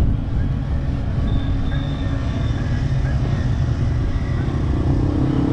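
Dual-sport motorcycle running at a steady pace while riding, heard as a constant low engine rumble mixed with wind and road noise.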